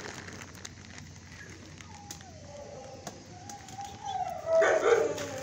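A dog whining in a high, wavering tone from about two seconds in, then a loud short bark near the end.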